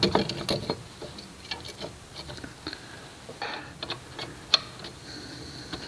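Irregular metallic clicks and taps of hub bolts and tools being handled while the bolts of a new front hub assembly are started, with one sharper knock about four and a half seconds in. A faint high steady tone follows to the end.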